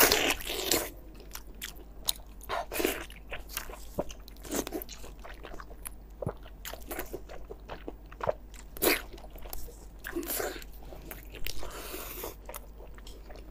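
Close-miked biting and chewing of a large Chinese blood sausage: wet mouth sounds at irregular intervals, with a louder bite or smack every second or two.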